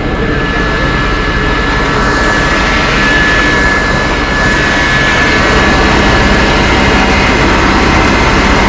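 Engine running steadily at high speed, with a steady high-pitched whine over the noise that grows louder about three seconds in.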